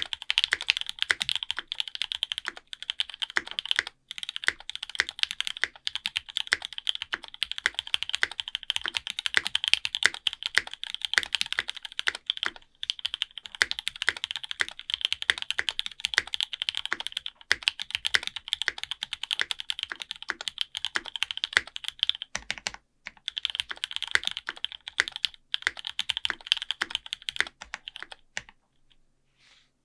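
Fast, continuous typing on a Graystudio Think6.5 v2 custom mechanical keyboard with lubed and filmed Alpaca v2 linear switches, an FR4 plate, Durock v2 stabilizers and GMK keycaps. There are a few short pauses, and the typing stops near the end.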